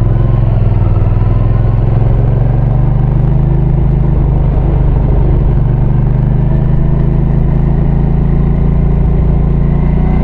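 Hyosung GV650's V-twin engine running at a steady cruise under a loud aftermarket-style exhaust, its note rising a little early on and then holding, heard muffled from inside the rider's helmet.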